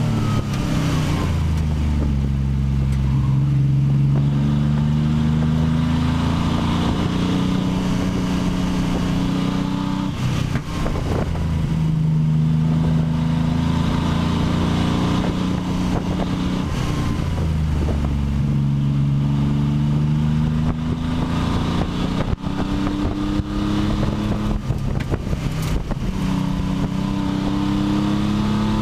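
Pontiac Fiero race car's engine heard from inside the cabin under hard acceleration, its pitch climbing steadily and dropping back at each gear change, a few times over.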